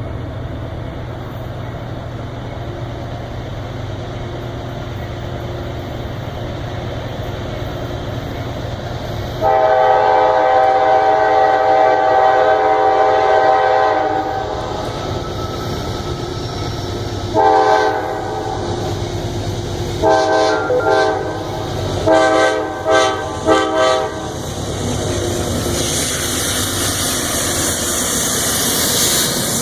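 CSX freight train's GE diesel locomotives approaching with engines running, then the lead unit's Nathan K5LA five-chime air horn played as a horn show: one long blast of about four seconds about a third of the way in, a short blast, then a run of quick short toots. Near the end the rumble and rail noise of the passing train rise.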